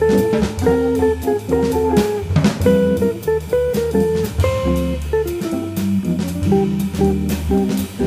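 Jazz organ group recording: guitar playing single-note lines over organ bass and a drum kit with cymbals.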